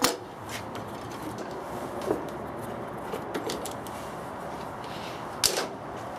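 Clamps being loosened and taken off a wooden fence: a scattering of short clicks and knocks, the loudest about five and a half seconds in.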